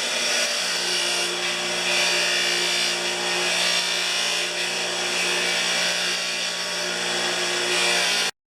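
Motor-driven wire wheel running steadily while the ratchet's cog and pawl edges are pressed against it to buff off tiny burrs, a scratchy rasp over the motor's hum that swells and eases as the part is worked. It cuts off suddenly near the end.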